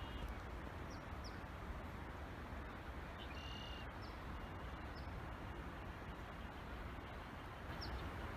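Scattered short, high bird chirps, some in quick pairs, over a steady low background rumble.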